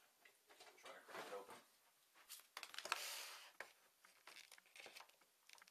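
Scissors snipping the strings that hold a model in its plastic packaging tray, with light rustling and handling of the packaging and a few small clicks; a short rustle about three seconds in is the loudest.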